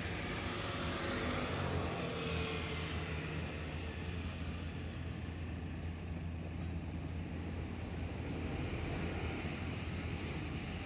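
Kotoden electric train approaching along the single track: a steady low hum under a rushing running noise, with a faint sliding whine in the first few seconds.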